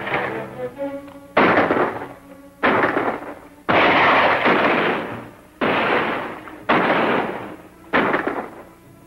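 Six gunshots, about one a second, each with a long echoing tail, over background film music.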